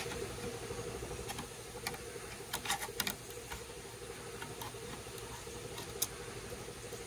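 Screwdriver prying at the lid of a metal paint can, giving a handful of small sharp clicks, a cluster of them about halfway through, as the lid is worked loose. A steady low hum runs underneath.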